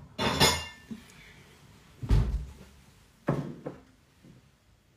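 Three dull thuds of kitchen handling, each short and separate, the heaviest and deepest about two seconds in.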